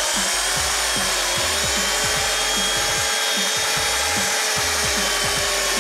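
Electric drill running steadily, its bit cutting the start of a hole in a painted sheet-metal panel. The motor whine rises slightly in pitch about a second and a half in.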